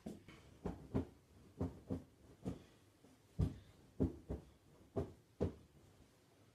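A series of about a dozen dull thumps or knocks, some in quick pairs, at an uneven pace.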